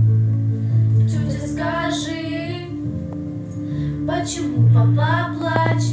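A song: steady low accompaniment notes with a singing voice coming in for two phrases, the first about a second and a half in and the second near the end.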